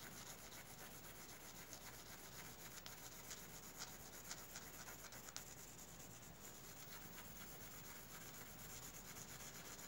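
Faint scratching of a graphite pencil on drawing paper, moved lightly and evenly back and forth to shade an area.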